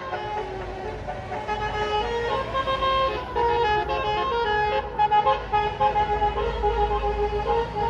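Bus telolet horn, a Basuri multi-tone air horn, playing a quick tune of changing notes, with the bus engine rumbling low underneath.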